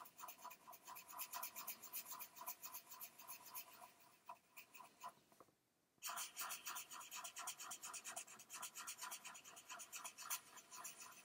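Felt-tip marker scratching on cardstock in quick back-and-forth strokes, colouring in small circles, with a short pause about halfway through.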